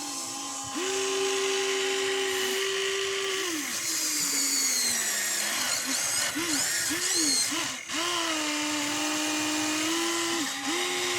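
Small electric motors of radio-controlled construction toys whining, sometimes held at a steady pitch and sometimes rising and falling quickly as the motors start and stop.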